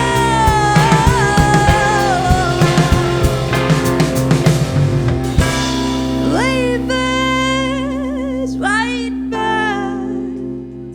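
Live band music with a female singer, drums, bass and keys. About halfway through, the drums stop and the voice holds long notes with vibrato over a sustained chord as the song fades toward its close.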